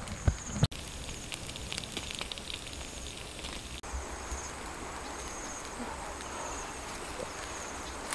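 Wood-fire embers crackling faintly under a grilling fish over a steady outdoor hiss, with insects trilling high and repeatedly in the background. A few low thumps come in the first moment.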